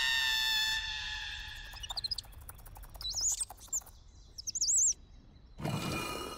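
A cartoon hyena's long, held yell that fades out after about two seconds. It is followed by high squeaky chirps rising and falling in pitch, and a short rushing noise near the end.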